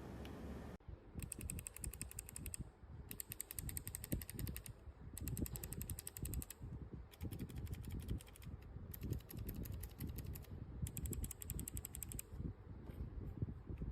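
Mechanical keyboard with Kailh BOX Thick Click switches being typed on: irregular keystroke thuds with clicks. Six bursts of fast, even, high-pitched ticking recur about every two seconds.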